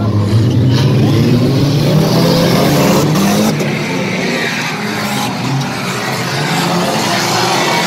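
A pack of stock car engines racing, several at once, revving up and down and overlapping as the cars pass. Slightly quieter after about three and a half seconds.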